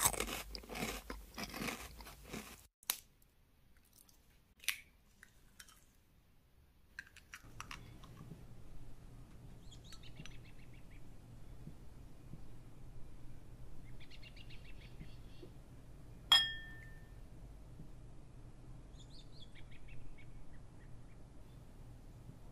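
Thin, crisp sesame tuiles cracking and crunching as they are snapped apart by hand: a dense run of crackles for the first few seconds, then a few single snaps. Later, over a low steady room hum, faint chirping and one sharp glassy clink.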